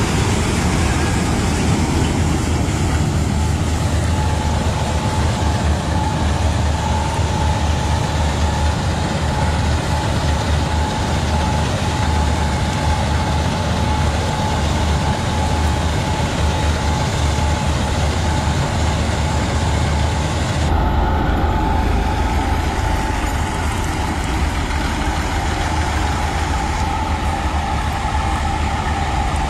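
Malkit combine harvester running steadily while harvesting wheat: a constant diesel drone under loud machine noise, with a steady high whine. The sound changes abruptly about two-thirds of the way through.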